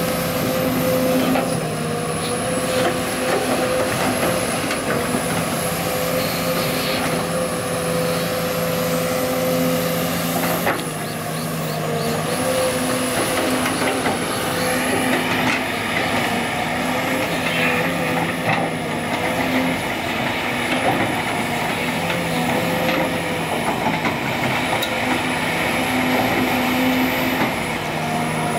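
Heavy diesel machinery running steadily: an excavator working alongside dump trucks. It gives a steady engine hum with a thin high whine that wavers up and down.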